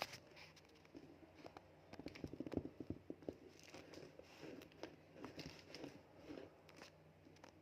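Faint rustling and a run of light clicks and taps as a parcel's packaging is handled and opened, busiest in the middle, with one sharper click at the start.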